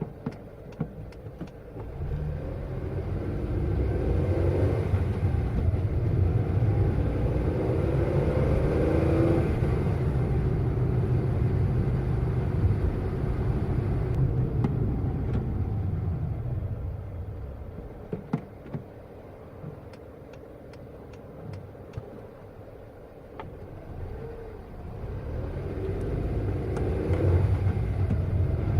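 Car engine revving while driving fast, its pitch rising and falling. It builds over the first few seconds, eases off to a lower, quieter level a little past halfway with a few sharp clicks, then builds again near the end.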